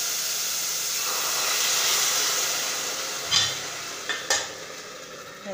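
Onion and garlic sizzling in a hot stainless steel pot with its burner turned off, the steady hiss fading after about two seconds. Two sharp metallic clinks follow as the steel lid knocks against the pot.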